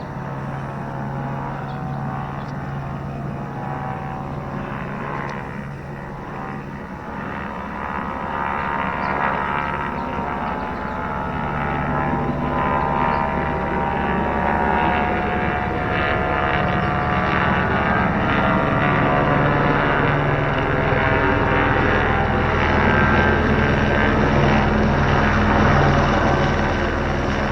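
Helicopter flying overhead, its rotor and engine growing steadily louder as it approaches. It is loudest about three-quarters of the way through, then eases slightly near the end.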